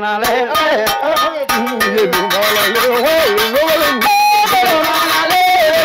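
Balafon music: quick struck wooden notes under a voice singing a gliding, ornamented melody.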